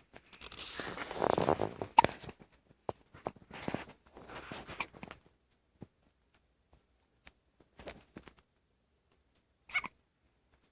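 Hiccups: short, sudden catches of breath. The sharpest and loudest comes about two seconds in, after a breathy, voiced stretch, and another brief one comes near the end.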